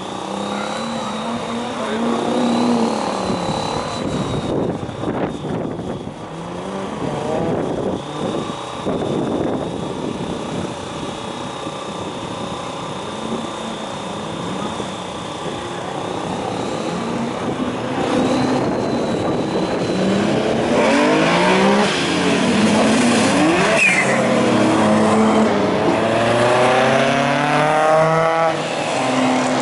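A line of classic cars driving past on a circuit, several engines at once, each note rising and falling in pitch as it passes. The engines grow louder and crowd together in the second half as the cars come close by.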